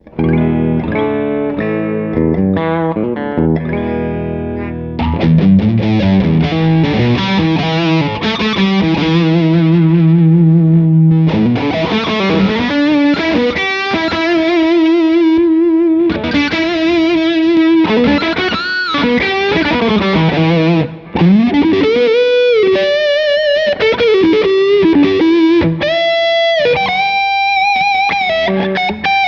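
Electric guitar played through two overdrive pedals stacked in series, giving a distorted tone. Chords and a low riff for the first few seconds, then a sustained single-note lead with string bends and vibrato.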